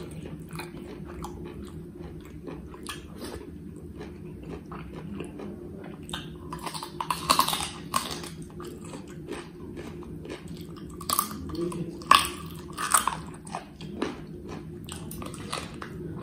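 Close-miked eating sounds: a man chewing mouthfuls of rice and buffalo meat curry eaten by hand, with many small wet clicks and smacks. There are louder bursts of smacking about seven seconds in and again around twelve to thirteen seconds in, over a steady low hum.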